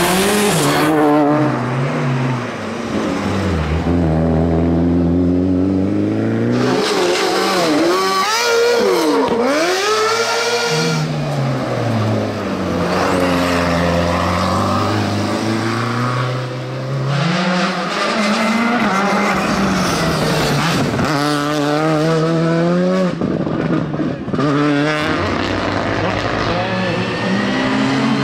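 Several rally cars racing uphill one after another, their engines revving hard and climbing and falling in pitch through repeated gear changes. One car passes close about ten seconds in, its pitch dipping sharply as it goes by.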